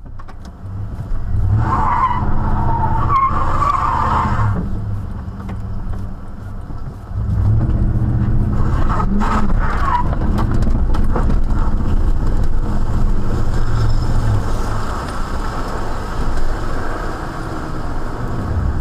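Car sounds: a steady low vehicle rumble, with a rougher, higher burst between about two and four seconds in and a few sharp knocks around nine to ten seconds in.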